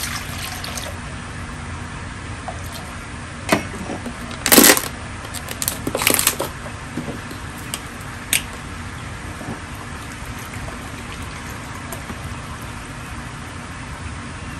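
Water poured from a plastic measuring jug into a stainless steel bowl, trailing off about a second in. A few knocks and clatters follow, the loudest about four and a half seconds in, over a steady background hum.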